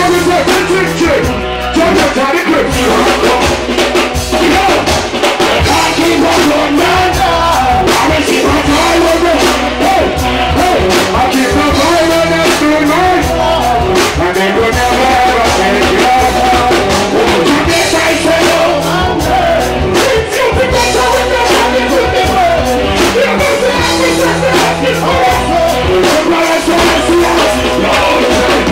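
Live reggae band playing loudly, with electric guitar, drum kit and keyboards, and a male singer singing over it into a microphone.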